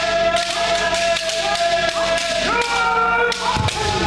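Several kendo practitioners shouting long, overlapping kiai, over many sharp cracks of bamboo shinai striking armour.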